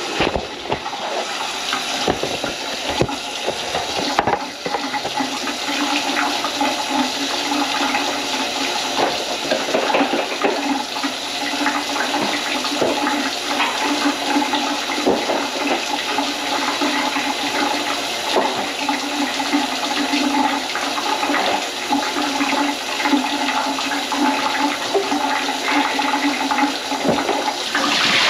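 Water rushing and gurgling steadily at a plugged kitchen sink.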